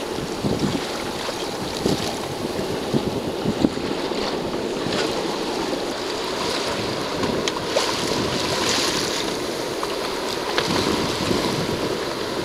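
Wind buffeting the microphone over water rushing and splashing along the hull of a sailing yacht under way, with short irregular gusts.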